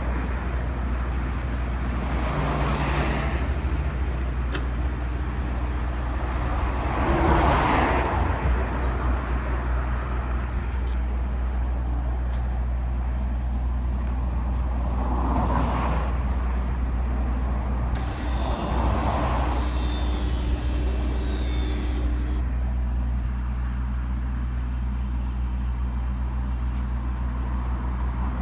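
Steady low traffic and engine hum with vehicles swishing past every few seconds. Past the middle, an automatic electric bollard's motor whirs steadily for about four seconds as the steel post rises out of the driveway.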